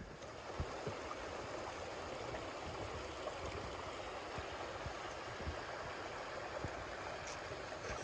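Running water, a steady rushing flow of rainwater down a flooded hiking trail, with a few faint low knocks.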